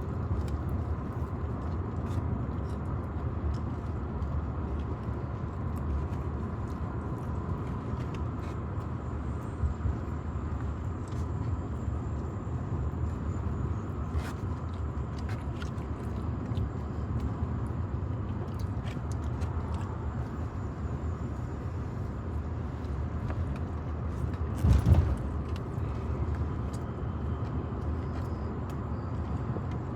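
Steady low rumble of a car driving, heard from inside the cabin, with scattered small clicks and a louder knock about 25 seconds in.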